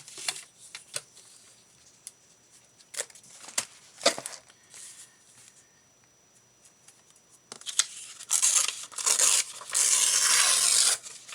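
Paper being torn by hand: a few light taps and short rips of handling at first, then tearing in several strokes in the last few seconds, the longest and loudest tear near the end.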